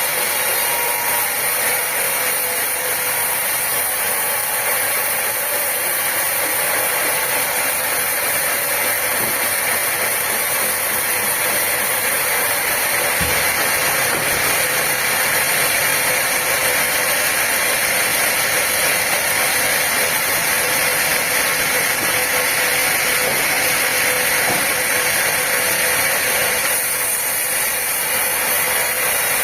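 Sawmill machinery running with a steady, unchanging noise.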